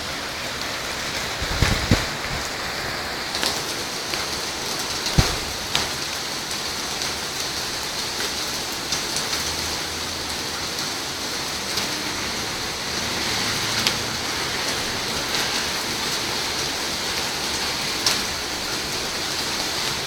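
Heavy rain pouring steadily in a thunderstorm, with a few sharp close taps and knocks of drops striking nearby, the strongest about two seconds and five seconds in.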